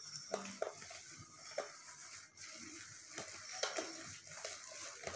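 Metal wire whisk slowly stirring flour into a thick egg-and-carrot batter in a plastic bowl: faint, irregular taps and scrapes against the bowl.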